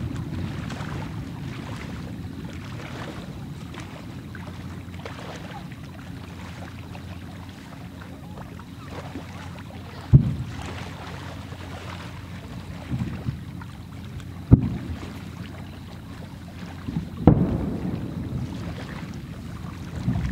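Distant fireworks going off over a steady low rumble: a few sharp booms with short echoing tails, the first about halfway through and two more a few seconds apart after it.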